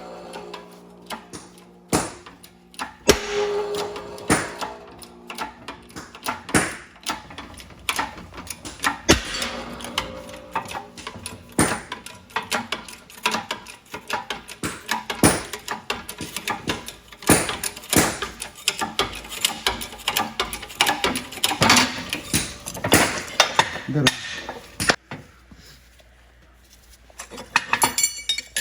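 Irregular metallic clinks and knocks of hand tools against car parts during front wheel bearing work, quieter for a few seconds near the end.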